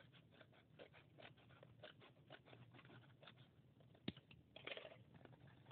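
Faint rustling and small ticks of a mail package being handled and opened by hand, with a sharp click about four seconds in and a brief crinkling tear just after.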